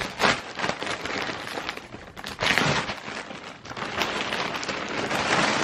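Packaging bag being ripped open and crinkled by hand: a steady crackle with a louder rush about halfway through.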